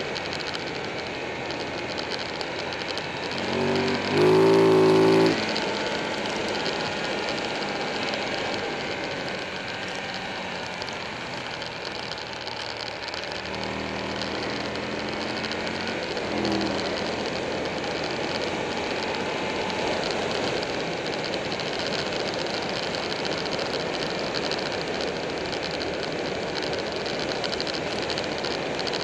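Buell 1125R's V-twin engine running under wind rush while riding through curves. The engine note swells into a loud pitched burst for about two seconds around four seconds in, and comes up again more softly around the middle.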